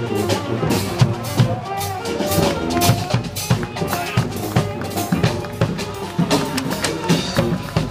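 Parade band music with a steady drumbeat: bass drum and sharp drum strikes under a held melody.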